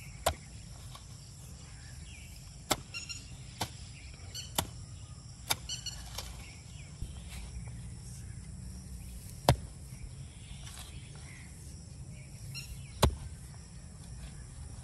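A hoe's blade chopping into damp soil, a handful of sharp thuds at uneven intervals, the two loudest about nine and thirteen seconds in. Steady high insect chirring runs underneath.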